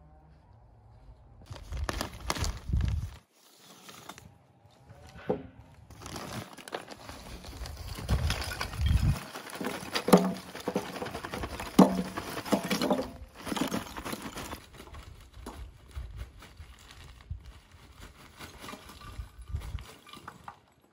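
Plastic bag crinkling as lumps of charcoal are tipped out of it into a metal charcoal grill, with sharp knocks as pieces land in the ash.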